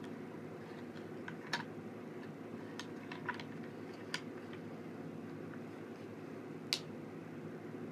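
A handful of short, sharp light clicks and taps at irregular intervals, the loudest near the end, over a steady low background hum.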